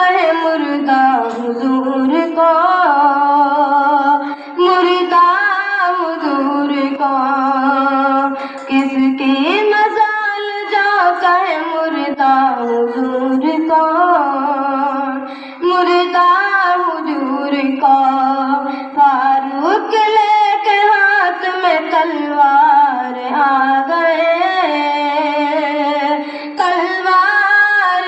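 A young boy singing solo into a microphone, unaccompanied: one melodic voice with long held notes and ornamented glides between them, pausing briefly for breath every few seconds.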